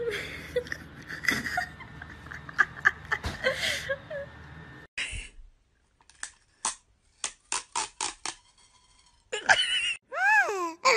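Scattered clicks and rustling, then a row of sharp separate clicks. Near the end a cat meows twice, each call rising and then falling in pitch.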